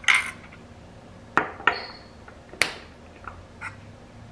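Spice jars and plastic measuring spoons clinking as they are set down on a glass cutting board: four sharp clinks in the first three seconds, one with a brief ringing ping, then a few softer ticks as a jar cap is handled.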